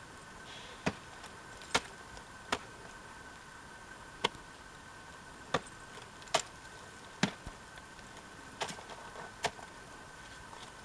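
A series of sharp, single clicks at uneven intervals, about nine of them, over a steady faint hum.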